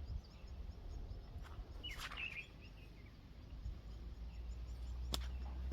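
Quiet outdoor ambience over a low steady rumble: a bird gives a short chirp about two seconds in, and there is a sharp click near the end.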